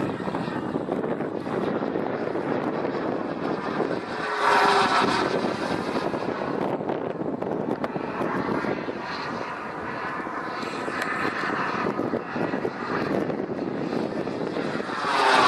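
K-180G2 turbine of a radio-controlled model jet in flight: a steady jet rush. It swells louder with a swirling, sweeping tone as the jet passes close, once about four seconds in and again near the end.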